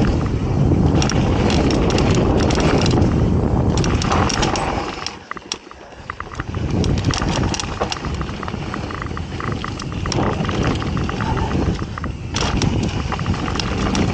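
Mountain bike riding fast down a dirt trail: wind rushing over the microphone, with tyres on dirt and the bike's frequent rattles and clicks. It goes quieter for about a second near the middle, then the rushing builds again.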